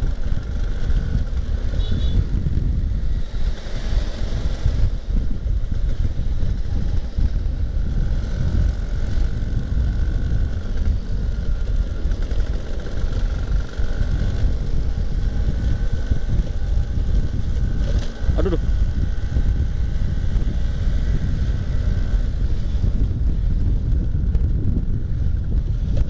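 Vintage Vespa Super 150 two-stroke scooter being ridden, its engine running steadily under heavy wind rumble on the helmet camera's microphone. A short click with a brief gliding squeak comes about two-thirds of the way through.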